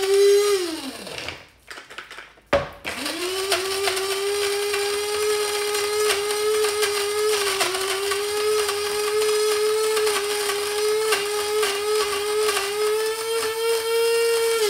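Small electric blade coffee grinder whirring as it grinds Brazil nuts. Its motor winds down and stops about a second in, starts again with a sharp click a second later, then runs steadily.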